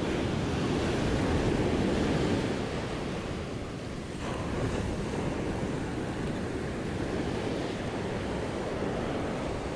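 Ocean surf washing up a sandy beach, a steady rushing that is loudest for the first couple of seconds and then eases a little, with wind buffeting the microphone.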